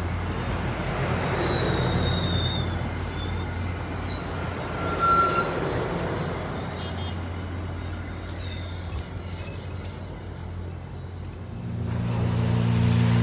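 MBTA commuter rail coaches rolling past with a rumble, their wheels squealing in a thin, high, wavering screech from a few seconds in. Music fades in near the end.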